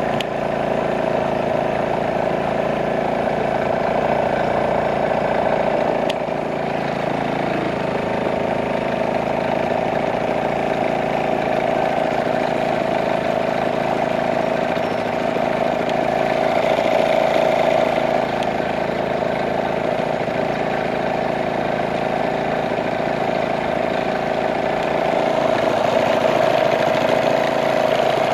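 Small outboard motor driving a canoe, running steadily at a constant speed with a droning hum.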